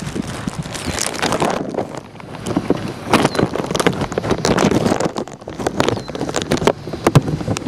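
Strong gusty wind buffeting the microphone, rising and falling in uneven surges with sharp thumps. A few short, high, falling chirps sound faintly over it.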